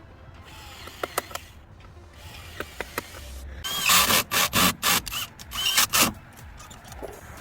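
A few sharp clicks, then about halfway in a quick run of harsh scraping strokes with brief squeaks, like hand-tool work on a hard material.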